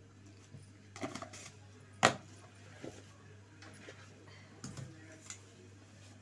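Kitchen clatter from steel containers and utensils being handled: a few scattered knocks and clinks, the sharpest about two seconds in, over a low steady hum.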